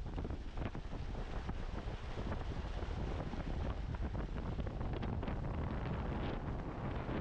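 Outdoor wind buffeting the microphone with a low rumble over a steady rushing noise, with scattered small ticks throughout.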